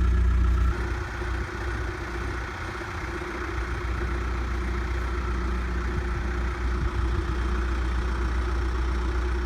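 Backhoe's diesel engine running, louder at first and dropping back less than a second in, then holding steady.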